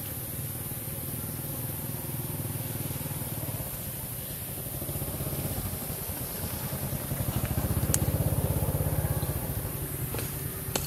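A motor vehicle's engine running with a low, rapid pulsing. It grows louder from about five seconds in, is loudest around eight seconds, then fades as it passes.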